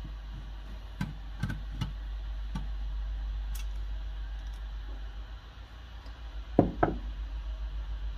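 Light clicks and taps of a screwdriver and small screws against the sheet-steel casing of a car cassette stereo during lid removal, then two louder knocks close together about six and a half seconds in. A low steady hum runs underneath.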